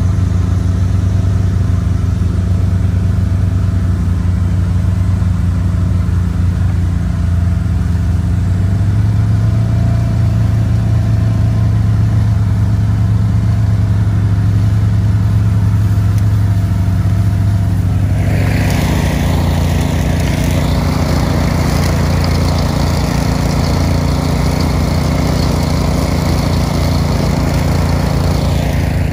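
Pickup truck engine running with a steady low drone, heard from the cab while driving over rough grassy ground. About two-thirds of the way through, a loud rushing noise joins it and stops just before the end.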